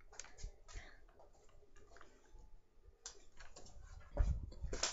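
Clicks, taps and bumps of a computer with a built-in webcam being handled and moved, with a heavier cluster of thumps near the end.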